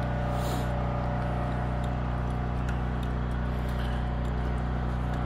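An engine running steadily at a constant low pitch, with a few faint light clicks over it.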